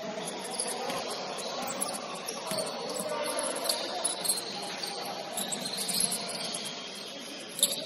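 Basketball shoes squeaking in short high chirps on a hardwood gym floor, over the general noise of the gym, with one sharp knock near the end.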